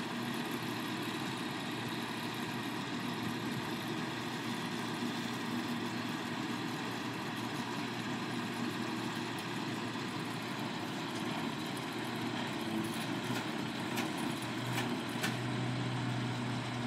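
Boom truck engine running steadily while its crane lowers a concrete shelter into the ground; a deeper hum comes in near the end, with a few faint clicks.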